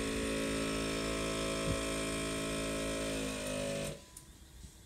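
Onboard air compressor running steadily, a hum with many tones, as it inflates the air-suspension bags. It slows with a falling pitch and cuts off about four seconds in, as both bags reach the 30 psi target.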